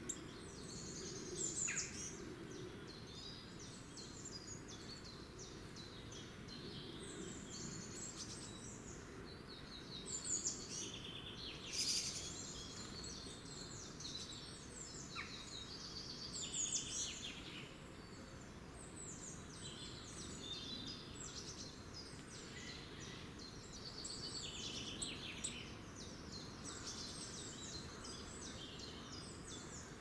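Many small woodland songbirds singing and calling at once, a continuous chorus of high chirps and trills with a few louder calls near the middle, over a steady low rumble.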